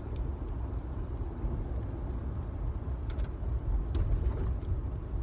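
Road noise inside a moving car's cabin: a steady low rumble from the engine and tyres, with a couple of faint clicks about three and four seconds in.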